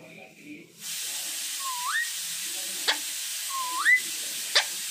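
Alexandrine parakeet whistling: twice a swooping whistle that dips and then rises, each followed by a quick, sharp upward whistle, which is the loudest sound. A steady hiss comes in about a second in and runs under the whistles.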